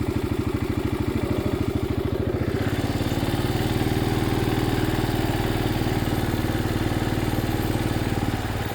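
A vehicle's engine running steadily with an even pulsing beat, its note shifting slightly about two and a half seconds in.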